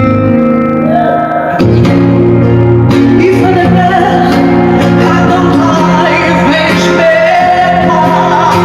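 Music with a voice singing over instrumental accompaniment; the accompaniment grows fuller about a second and a half in.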